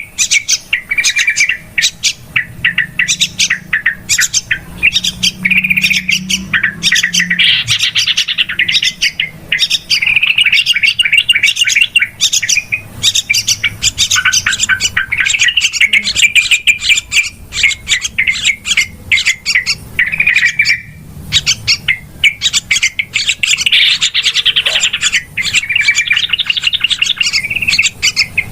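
Yellow-vented bulbuls chattering noisily: a dense, unbroken run of bubbling chirps, trills and sharp call notes, the excited flock chatter used as a lure call to draw the birds in.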